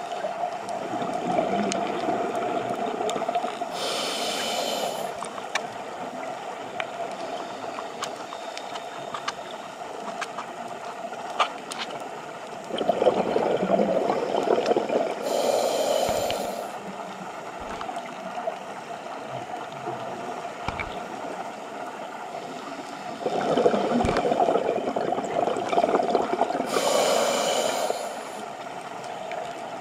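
Scuba diver breathing through a regulator underwater. Three slow breaths come about ten seconds apart, each a short hiss from the regulator followed by a surge of exhaled bubbles gurgling past, over a steady underwater rumble.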